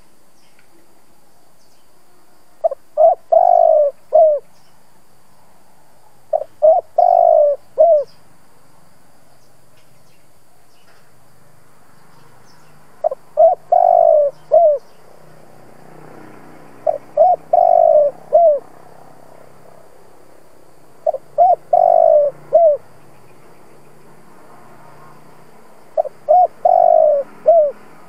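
Spotted dove cooing: six repeats of its song phrase, spaced about four seconds apart. Each phrase is two quick short notes, a longer drawn note and a short closing note.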